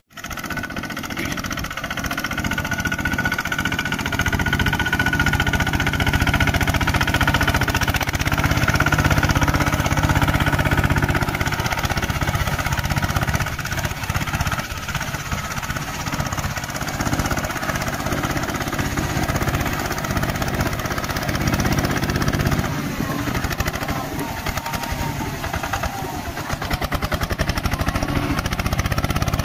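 Engine of a two-wheel walking tractor running steadily under load as its cage wheels churn through a flooded rice paddy.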